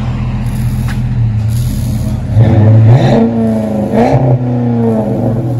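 2007 Chrysler 300C's 5.7-litre Hemi V8 exhausting through a Flowmaster 40 Series muffler with the rear resonators cut off and 4-inch tips: idling steadily, then revved twice, about two and a half seconds in and again near four seconds, each rev climbing and dropping back to idle.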